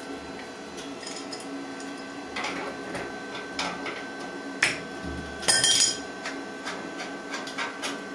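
Metal clinks and taps of braided stainless-steel flexible hoses and their threaded fittings being handled at the water connections of an instant gas water heater, with the loudest jingling rattle about five and a half seconds in. A steady hum runs underneath.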